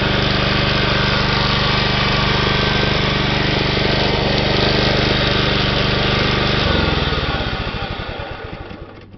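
John Deere 14SE walk-behind mower engine running steadily, then winding down and stopping about seven seconds in. The owner thinks its carburettor needs a new jet.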